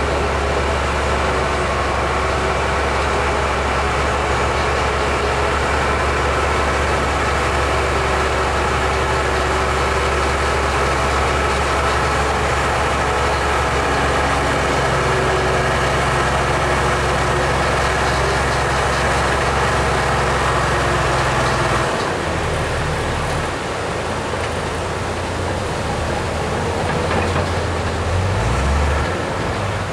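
Crawler bulldozer's diesel engine running steadily as it pushes beach sand with its blade. About two-thirds of the way through the engine note drops, and near the end it briefly revs up and down.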